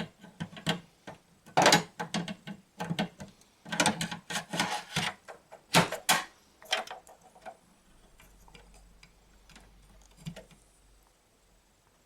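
Hands working on a desktop PC's case and parts: a run of irregular sharp clicks and knocks, busy for the first six or seven seconds, then only a few faint ticks.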